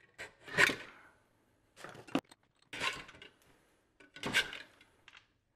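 Coping saw cutting through 12 mm plywood held in a vise: about five short, separate sawing strokes, roughly a second apart.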